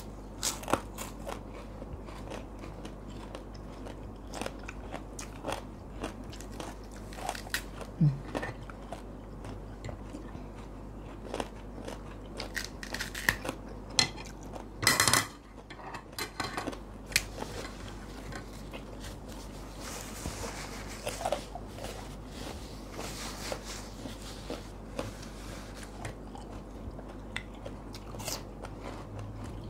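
Close eating sounds: crunchy bites and chewing of raw young eggplant and other fresh vegetables, with light clicks of spoons on plates. One louder crunching burst comes about halfway through.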